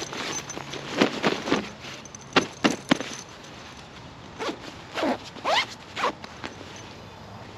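A zipper on a padded fabric cover being pulled in a series of short strokes, some of them rising in pitch, with fabric rustling between them.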